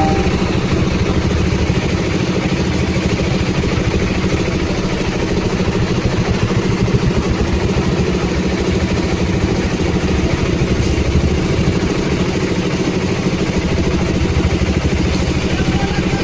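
Engine of a concrete mixer machine running steadily.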